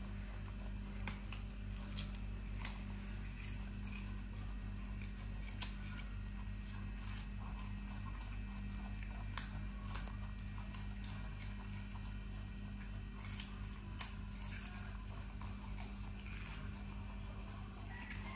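Baby monkey chewing raw carrot: scattered crisp crunches and clicks at an irregular pace over a steady low hum.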